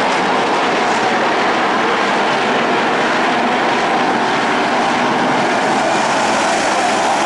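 Engines of several dirt-track stock cars running hard together as they lap the track. The noise is loud and steady and never drops out.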